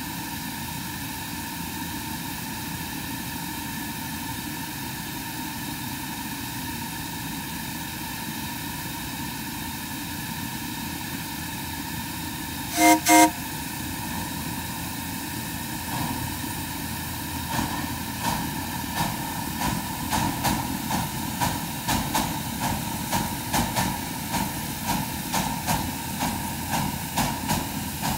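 Ridable live-steam oil-fired 4-6-0 ten-wheeler locomotive at a standstill with a steady hiss, then two short whistle toots, the usual signal for moving off. A few seconds later its exhaust beats begin as it pulls away, settling into a rhythm of about two a second.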